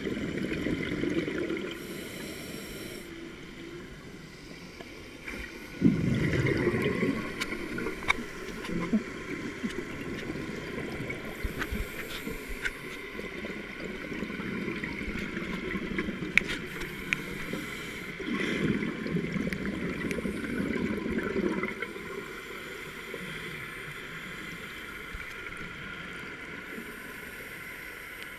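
Scuba diver breathing through a regulator underwater: long gurgling bursts of exhaled bubbles, several seconds apart, over a steady underwater hiss, with scattered sharp clicks.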